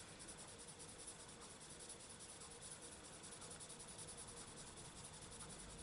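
Near silence with faint, soft scratching of a Prismacolor coloured pencil (burnt ochre) shading lightly on paper.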